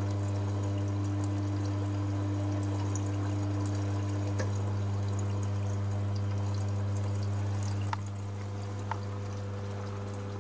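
Panasonic front-loading washing machine running with a near-full load of linen: the drum turns with water swishing over a steady motor hum. About eight seconds in the hum drops in level, and two short clicks follow.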